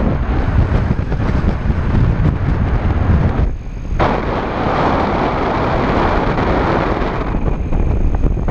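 Wind buffeting an action camera's microphone during paraglider flight: a loud, steady, rumbling rush. It eases for half a second about three and a half seconds in, then returns with more hiss.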